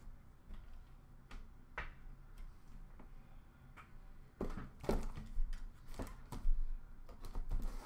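Light clicks and taps of trading cards being set down on sorted stacks. About four and a half seconds in come louder, busier knocking and handling noises as a cardboard box is taken from a plastic bin.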